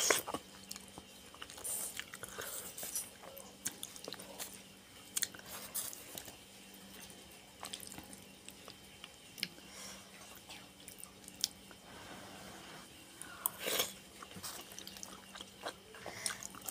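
Close-up eating sounds of a person slurping noodles and chewing seblak, a spicy Indonesian noodle soup: a slurp right at the start, then quiet wet chewing with scattered soft mouth clicks and a few short louder slurps.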